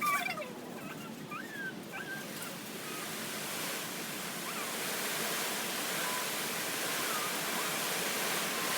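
Rain falling in a strong wind: a steady hiss that grows louder a few seconds in, with a few faint short calls in the first couple of seconds.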